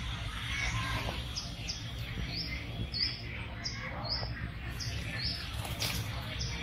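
A bird chirping over and over, short high calls about two to three a second, over a steady low background rumble.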